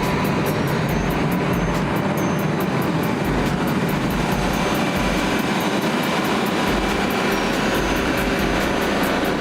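Detroit Diesel 6V92 two-stroke V6 diesel engine of a 300 kW Kohler generator set running at a steady speed.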